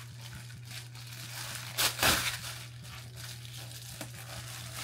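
Plastic bubble mailer crinkling and tearing as it is pulled open by hand, in a run of short rustles with the loudest one about two seconds in.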